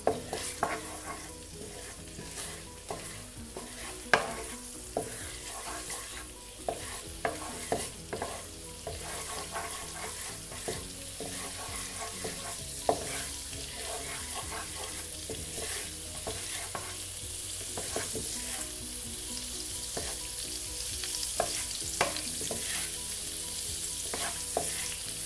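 Green cardamom seeds frying in hot butter and oil in a pan, sizzling, with a wooden spatula stirring and scraping, giving many short taps against the pan. The sizzle grows steadily louder.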